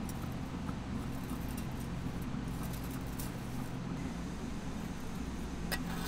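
Faint scattered ticks and crackles from aluminium lathe chips heating in a hot furnace crucible, over a steady low hum. Near the end comes one sharper click as metal tongs touch the chips.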